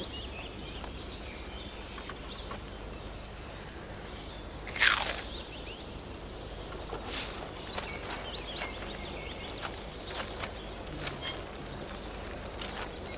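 Outdoor woodland ambience: a steady background hiss with small birds chirping now and then. About five seconds in, a loud falling swoop cuts through, and a sharp click comes a couple of seconds later.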